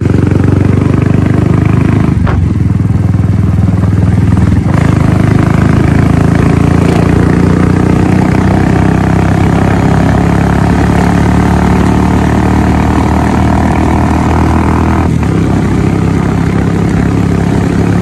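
Royal Enfield Bullet's single-cylinder engine running as the motorcycle is ridden along a road: a loud, deep, steady beat, with a few brief changes in the note.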